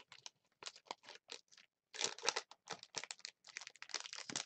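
Wrapper of a 2013 Topps Football hobby pack being torn open and crinkled, an irregular run of short crackles and rustles.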